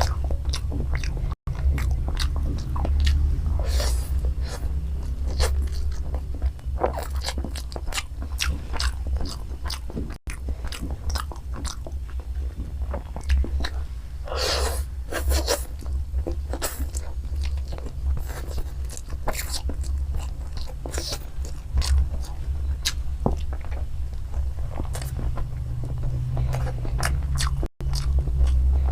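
Close-miked eating of spicy fried chow mein noodles with egg: continuous chewing with many short wet clicks and smacks, over a steady low rumble. The audio cuts out briefly three times.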